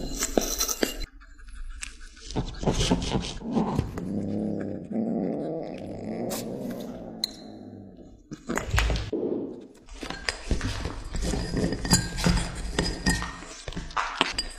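Kittens chewing and smacking on raw meat with many short wet clicks, and a low, drawn-out growl lasting several seconds in the middle.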